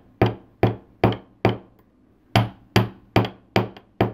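Jeweler's chasing hammer striking copper wire on a steel bench block to texture its edge: light, evenly spaced taps about two and a half a second. Four strikes, a pause of about a second, then five more.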